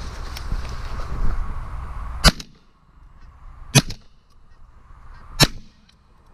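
Three shotgun shots about a second and a half apart, fired at birds passing overhead and all missing. Rustling and wind noise come before the first shot.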